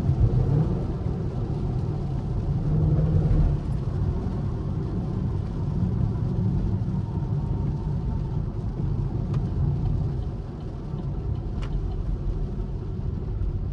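Chevrolet Camaro SS's 6.2-litre V8 running as the car is driven, a steady low rumble that swells for a moment about three seconds in and eases off near the end.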